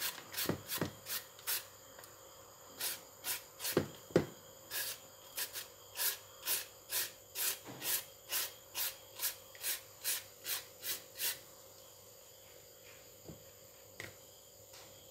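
Green mango being shredded by hand with a serrated shredder: rhythmic rasping strokes, about two a second, stopping about eleven seconds in. The mango's flesh is very hard.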